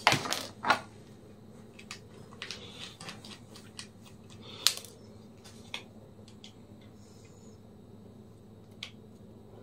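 Scattered small metallic clicks and taps of a screwdriver backing out the four side screws of a laptop hard drive's mounting bracket. A few louder clicks come in the first second and a sharp one near the middle, over a faint steady hum.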